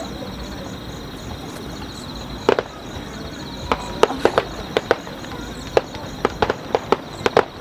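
Fireworks bursting: a rapid, irregular series of sharp bangs and crackles. A couple come about two and a half seconds in, then they come thick and fast from about four seconds on.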